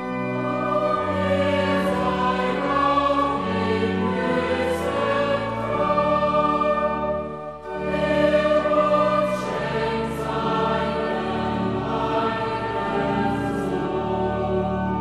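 Background music: a choir singing slow classical sacred music in long held chords, with a brief break between phrases about halfway through.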